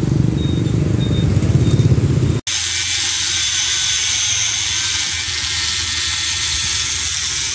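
Motorbike traffic running by. After an abrupt cut about two and a half seconds in, a handheld angle grinder grinds metal with a steady high whine.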